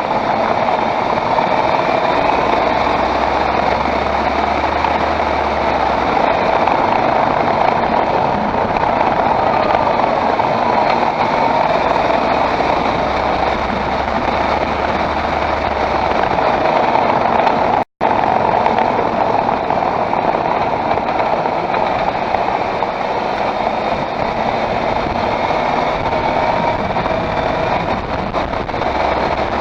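Steady running noise of a 2013 Škoda Octavia 1.8 TSI with a seven-speed DQ200 DSG gearbox, a car that clatters over bumps and vibrations and whose owner suspects the gearbox. The sound cuts out for an instant a little past halfway.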